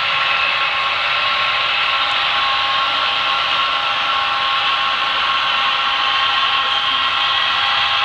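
HO-scale model coal train running on the layout: a steady whirring rush with a few steady whining tones.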